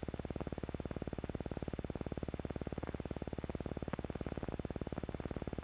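Surface noise of an old film soundtrack: a steady low hum with a rapid, even flutter and a few faint clicks, with no sound from the scene itself.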